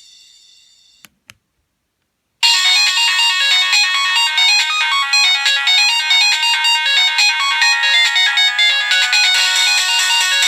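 Nokia 1280 monophonic ringtones. The last note of one tone dies away, two short clicks follow, and about two and a half seconds in the next ringtone starts, a fast melody of short beeping notes.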